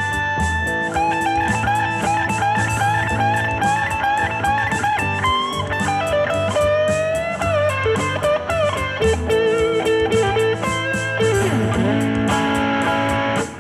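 Stratocaster-style electric guitar playing a blues-rock lead in A Mixolydian, with bent notes and a slide down near the end. The phrases start on successively higher chord tones. Behind it is a backing track with bass and a steady drum beat.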